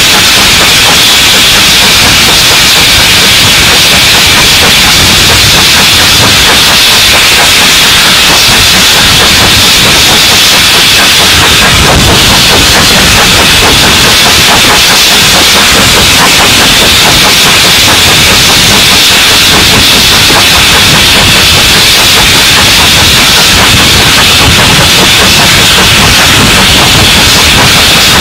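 Steam-hauled passenger train running along the line, heard from an open carriage window: a loud, steady rushing hiss of air and steam over the train's running noise.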